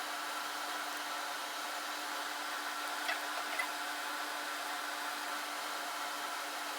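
Steady machine hum with a constant low drone, as from a fan running in the room, with two faint clicks about half a second apart near the middle.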